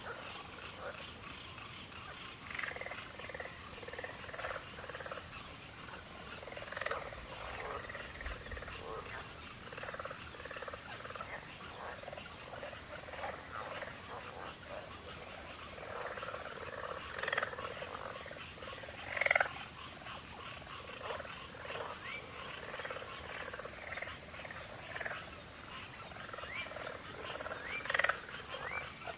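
Crickets chirping in a dense, unbroken evening chorus, a steady high pulsing trill. Fainter short calls lower in pitch come and go underneath.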